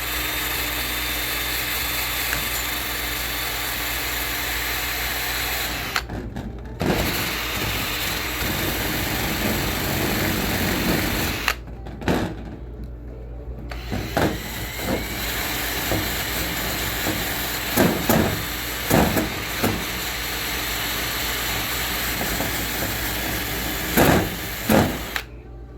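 A power tool running steadily in three long stretches with two short pauses, with a few knocks in the last stretch.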